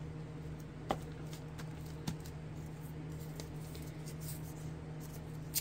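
Paper being handled by hand: light taps and faint crinkling of a small scrap of paper, over a steady low hum.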